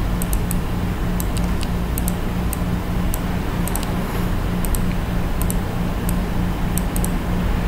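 Computer mouse clicking as anchor points and tools are selected: about a dozen sharp clicks at irregular intervals, many in quick pairs. Underneath runs a steady low hum and hiss.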